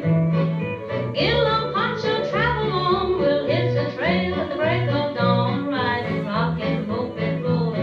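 Background country music: a yodeling voice swooping up and down in pitch over a steady stepping bass line.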